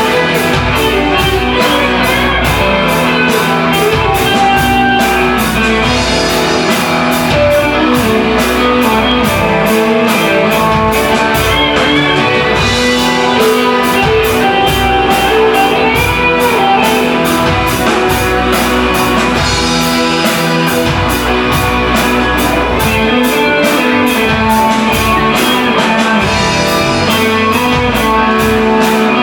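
Rock band playing live, without vocals: electric guitars over bass and a drum kit, with a steady cymbal beat.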